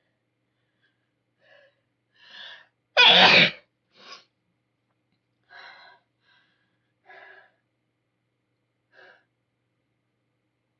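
A woman with a head cold sneezes once, loudly, about three seconds in, after a short gasping in-breath. Several brief, quiet sniffles follow at intervals.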